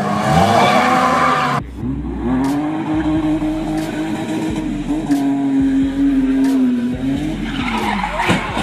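Drift cars sliding: engines held at high revs while tyres skid and squeal. The sound changes abruptly about a second and a half in, where one clip gives way to another, and after that a steady high engine note carries on for several seconds, dipping and then rising again near the end.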